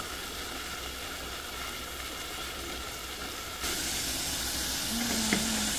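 Fresh shrimp frying in very hot oil, a steady sizzle that turns louder and brighter about three and a half seconds in.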